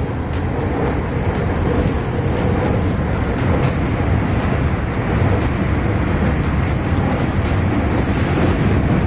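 Commuter train running, heard from inside the passenger carriage: a steady low rumble with a rushing noise over it.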